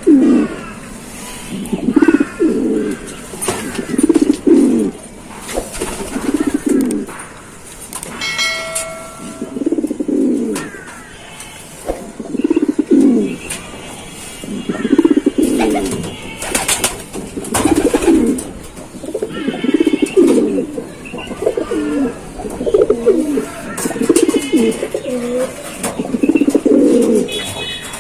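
Domestic pigeons cooing over and over, a low rolling coo every second or two.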